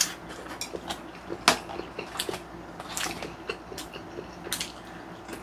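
Eating at the table: scattered clicks of chopsticks against plastic takeout trays, with chewing, and one sharper click about one and a half seconds in.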